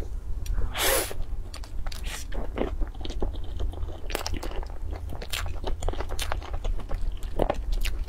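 Close-up biting and chewing of cream-filled puff pastries: one bigger bite about a second in, then chewing with many small crackly clicks, over a low steady hum.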